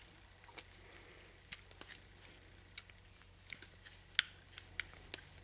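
Light, scattered clicks and ticks of a ridge reamer being handled, about one or two a second, the sharpest about four seconds in.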